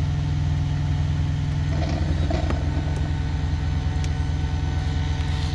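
Truck engine idling steadily: a low, even hum.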